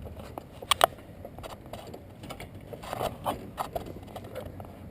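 Scattered clicks and knocks of hand tools working on the engine as the accessory drive belt is taken off: a sharp double click about three quarters of a second in and a cluster of knocks around the three-second mark.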